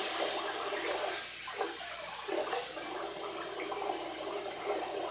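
Bathroom sink tap running steadily while a razor blade is rinsed clean under it, with a few light knocks.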